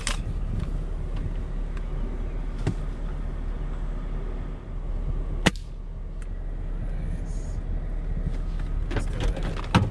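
A single sharp rifle shot about halfway through, fired out of a car's side window, over the steady low hum of the idling car.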